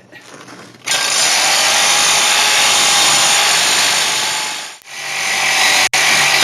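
Power saw cutting into a steel wheel stud, loud and steady: it starts about a second in, stops briefly near five seconds and starts again.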